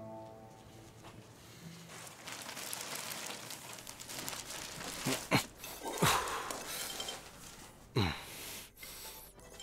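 Plastic bag rustling and crinkling as cloth is handled and pushed into it, with three sharper crackles about five, six and eight seconds in.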